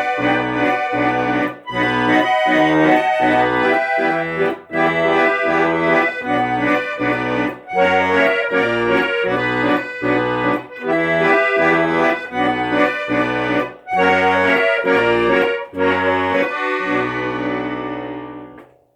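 Instrumental music: a melody over a steady, rhythmic bass accompaniment, fading out near the end.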